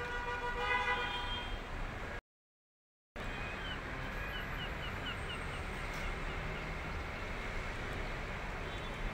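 City street traffic noise with a car horn held for about two seconds at the start. The audio then cuts out completely for about a second. After it, the steady traffic background carries a quick run of short, high chirps.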